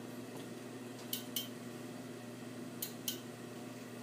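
Clothes iron being handled while pressing fabric on an ironing board: two pairs of short, sharp clicks about a second and a half apart, over a steady low hum.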